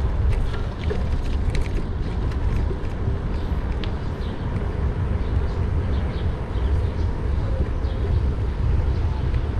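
Riding noise from a bicycle-mounted action camera: steady low wind rumble on the microphone with tyre and road noise, and scattered light clicks and rattles, most of them in the first few seconds.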